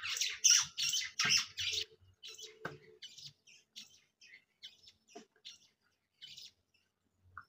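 A bird chirping in a quick run of short high notes for about two seconds, then a few scattered faint chirps and clicks.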